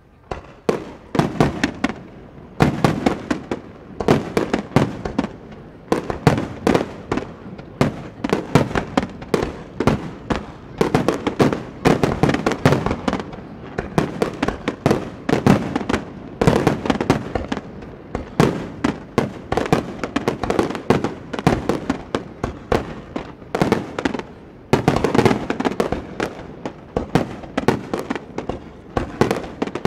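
Aerial fireworks shells bursting in a rapid, continuous barrage: several sharp booms and cracks a second, with a short lull near the end before the barrage thickens again.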